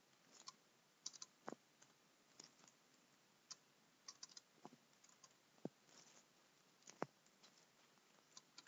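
Faint computer keyboard typing: sparse, irregular keystrokes with pauses between them.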